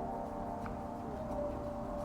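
Soft ambient background music of long held, overlapping notes that change pitch now and then, with no clear beat.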